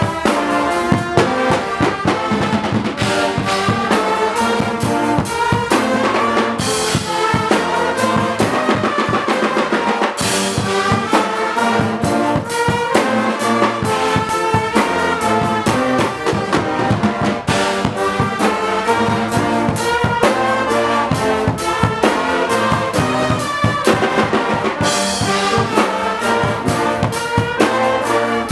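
Guggenmusik carnival band playing loudly: brass (trumpets and trombones) carrying the tune over a beating drum section.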